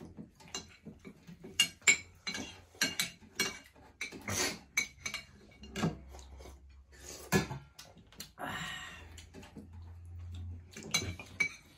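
Scattered clinks and taps of fingers, spoons and a fork against metal plates and ceramic soup bowls during a meal, with a few longer noisy stretches among the clicks.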